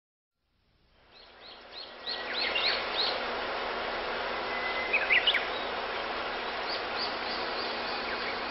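Outdoor ambience fading in: a steady hiss with a small bird calling in runs of short rising-and-falling chirps and one brief trill about five seconds in.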